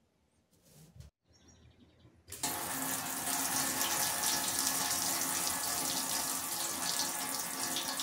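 Kitchen faucet running hard into a stainless steel sink, starting suddenly about two seconds in after a near-quiet start. The tap is open to bleed the house's water lines of pressure, with the well pump switched off.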